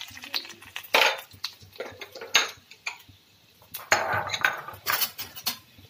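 Steel spoon and steel kadhai clanking: a few sharp metal knocks and clinks, spaced out, with a quiet stretch in the middle.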